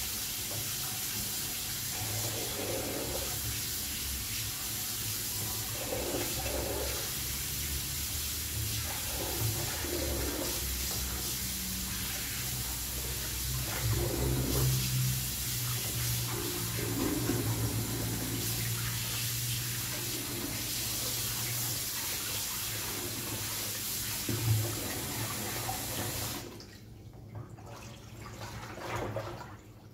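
Kitchen tap running steadily into the sink while pieces of cut fish are rinsed under it; the water shuts off near the end.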